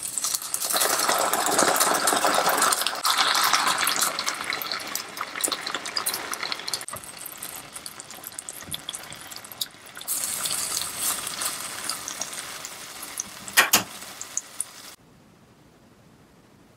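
Soy-based braising sauce poured into a hot frying pan of seared eggplant slices, sizzling and bubbling hard as it hits the pan, then simmering on as it reduces. A single sharp knock comes near the end, shortly before the sound cuts off.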